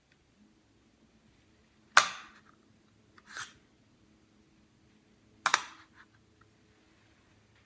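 Three sharp knocks: a loud one about two seconds in, a softer one a second and a half later, and a quick double knock after that, over a faint steady hum.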